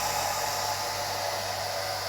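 Old hair dryer running steadily: an even rush of air with a low, steady motor hum underneath.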